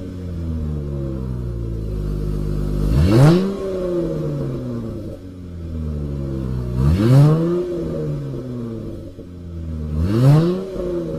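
2015 Dodge Challenger SXT's V6 through a Flowmaster American Thunder exhaust, heard from behind the car: it idles and is blipped three times, each rev rising quickly and settling back to idle, about three to four seconds apart.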